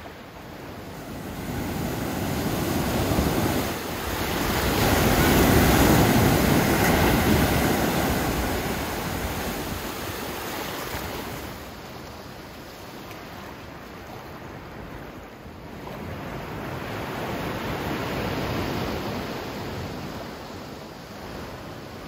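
Choppy open-sea water rushing and splashing, with wind on the microphone. The noise swells loudest about five seconds in and again, more softly, around sixteen to nineteen seconds in.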